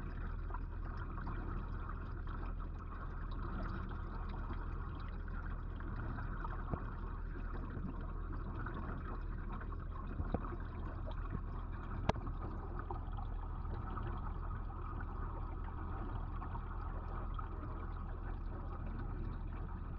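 Steady underwater noise of water circulating in a large aquarium tank, heard through a submerged camera, with a constant low hum beneath it. A few sharp clicks stand out around the middle.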